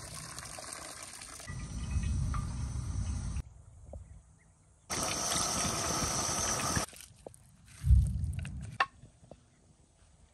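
Liquid pouring and splashing into water, then chicken pieces sizzling in hot oil in a pan for about two seconds. Then a single loud thump and a few light clicks.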